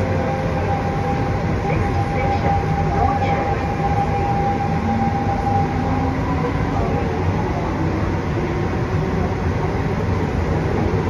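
Siemens C651 MRT train heard from inside the car: a steady rumble with faint motor tones that slowly rise in pitch as the train picks up speed.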